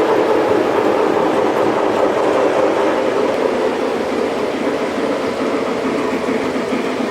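Model trains running on a layout: a steady, loud rolling rumble of small wheels on track.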